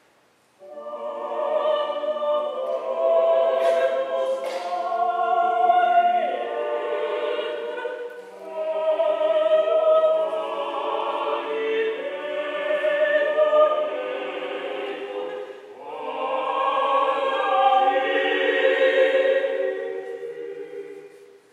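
A vocal quartet of four solo voices singing unaccompanied in slow, sustained sacred phrases, with brief breaths between phrases about 8 and 16 seconds in.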